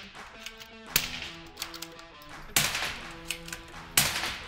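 Three suppressed .22 LR rifle shots through a SilencerCo Warlock 2 rimfire silencer, about a second and a half apart. Each is a sharp crack followed by a short echo.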